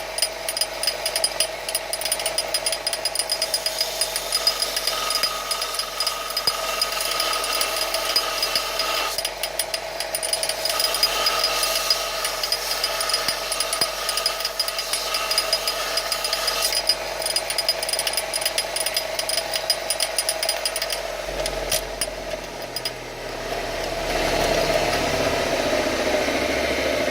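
Electric belt sander running with a metal workpiece pressed against the belt, a steady whine with a dense gritty rasp. About 22 seconds in the sound dips briefly and then carries on lower in pitch.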